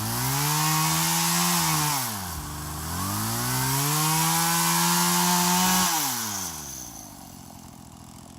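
Two-stroke chainsaw revved up twice, about two seconds and then three seconds at high speed, its pitch dropping back toward idle in between, then settling to a quieter idle about six seconds in.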